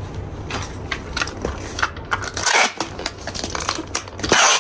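Plastic packaging being handled: crinkling and rustling with small clicks and knocks, with two longer, louder crinkles about two and a half seconds in and near the end.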